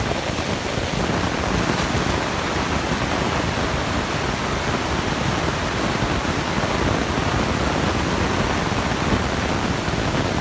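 Excavator working a hydraulic demolition shear on scrap steel: a steady, dense rushing noise of the machine, with no distinct clanks or cuts standing out.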